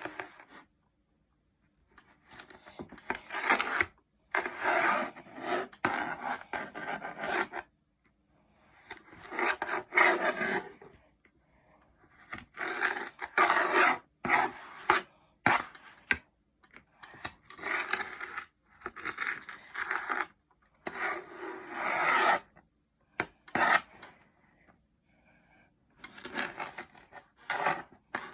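Kinetic sand being cut and squeezed: repeated grainy rubbing and crumbling bursts, each a second or two long, separated by short dead-silent gaps.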